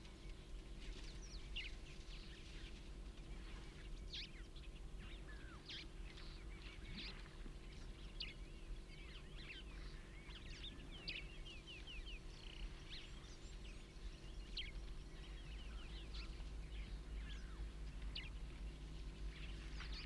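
Birds calling throughout in many short chirps and whistles, over a steady low hum.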